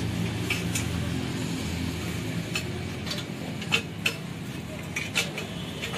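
Sharp metallic clinks, about seven spread through, as a stainless exhaust bend pipe is worked into place under a Kawasaki Ninja 1000's engine, over a low steady hum.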